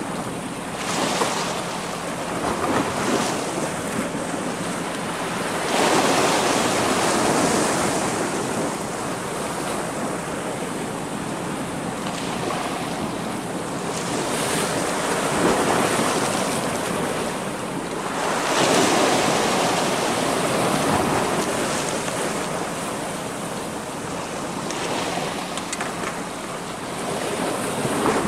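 Sea waves washing and breaking against shore rocks, swelling louder in surges about 6, 15 and 19 seconds in, with wind buffeting the microphone.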